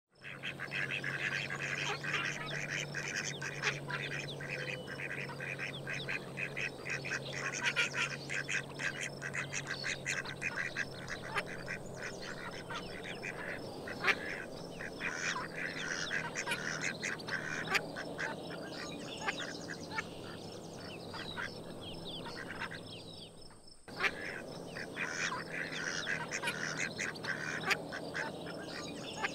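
A flock of domestic ducks quacking and chattering in rapid, overlapping calls, with a brief break a little before the end.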